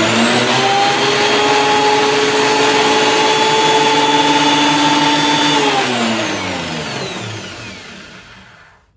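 DeWalt DW734 thickness planer running empty, its motor and cutterhead giving a loud, steady whine. It is switched off about five and a half seconds in and winds down, the pitch falling as it fades out.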